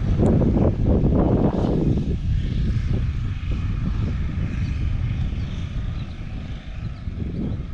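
Wind buffeting the microphone: a loud, uneven low rumble that rises and falls, heaviest in the first two seconds.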